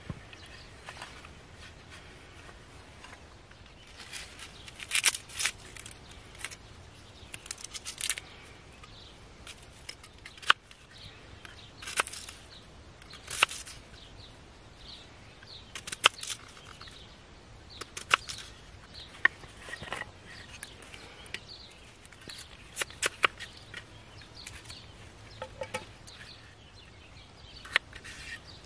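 Knife cutting an onion and then a potato on a small wooden board: irregular sharp knocks of the blade on the wood, with short scraping rustles in between.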